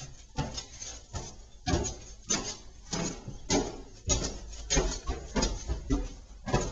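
Footsteps climbing bare wooden stairs: a run of hard knocks on the unfinished plank treads, about two a second, growing heavier as the climb goes on.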